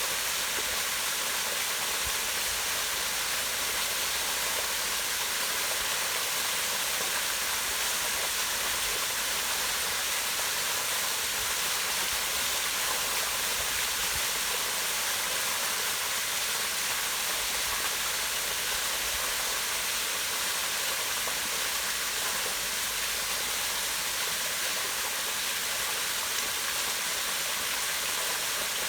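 Small waterfall spilling down rock into a pond: a steady, even rush of falling water, bright and hissy with little low rumble.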